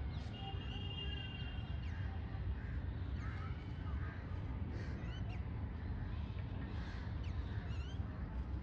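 Several birds calling, with short chirps and quick rising whistles, one note held for about two seconds near the start, over a steady low rumble.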